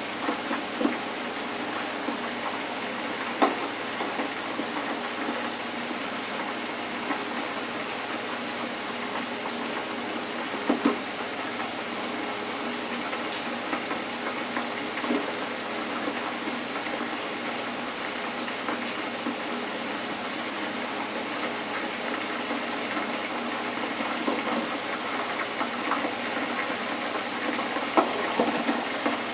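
Hot oil sizzling steadily in a small electric deep fryer as battered seafood fries, with a few short clicks of metal tongs against the fryer basket and plate.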